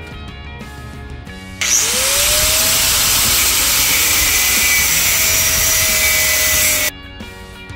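Corded angle grinder spinning up with a rising whine about a second and a half in, then grinding on a steel gate post with a loud, steady hiss. It cuts off suddenly near the end.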